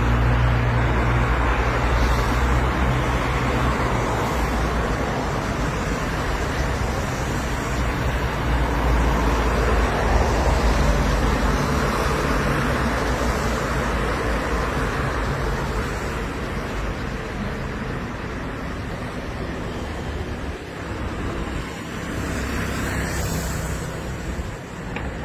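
Steady rumble and hiss of motor vehicles, gradually getting quieter.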